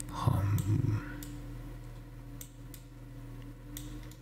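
Scattered computer mouse clicks over a steady low electrical hum, with a brief low sound, the loudest thing here, in the first second.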